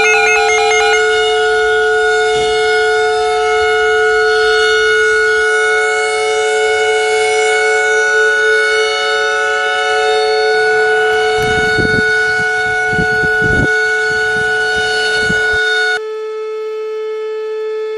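Steady siren-like alert tone, several pitches held together as one chord without rising or falling. It drops in level about 16 seconds in, with a few low thumps shortly before.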